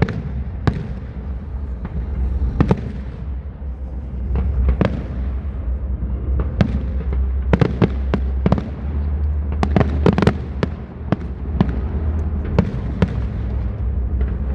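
Aerial fireworks display, shells bursting with sharp bangs and cracks at irregular intervals, in clusters about 8 and 10 seconds in, over a steady low rumble.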